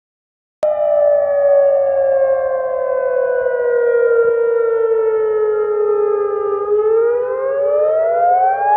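Civil-defence siren wail from an emergency alert broadcast, starting about half a second in: its pitch falls slowly for about six seconds, then rises again near the end.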